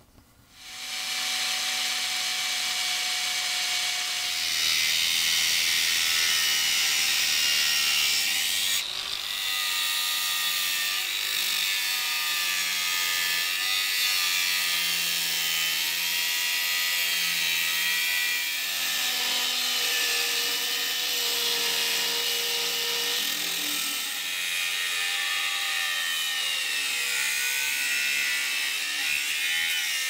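Angle grinder with a thin cutoff disc cutting a steel plate, shrieking steadily with a wavering whine as the disc bites. It starts about half a second in. The grinder is cutting out a new knife spring.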